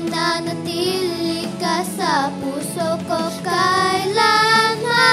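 A young girl singing a Tagalog ballad over instrumental backing, bending and sliding between notes, then holding a long steady note from about four seconds in.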